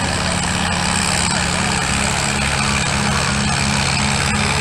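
Antique tractor engine running steadily under heavy load while it drags a pulling sled down the track.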